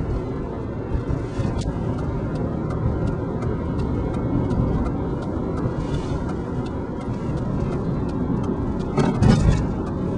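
Steady road and engine noise heard from inside the cabin of a moving car: a low, even rumble of tyres and motor. About nine seconds in there is a brief louder low burst.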